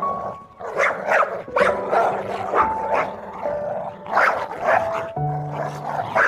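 A dog barking repeatedly in short, sharp barks, about ten in a few seconds, over background music with steady held notes.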